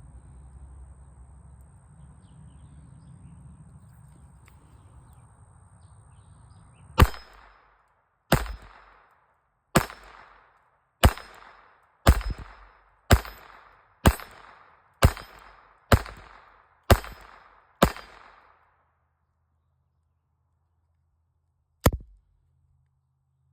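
Ruger LCP II .22 LR pistol fired in a string of about eleven shots, roughly one a second, then one more sharp report about four seconds later.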